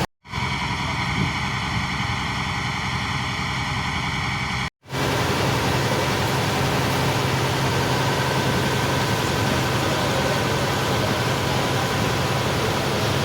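A steady engine drone with a dense rushing noise over it, cut off twice by brief silent edits: once right at the start and once about five seconds in.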